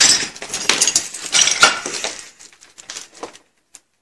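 Footsteps crunching and clinking over rubble and broken debris, busy for about the first two seconds and then thinning to a few scattered clicks.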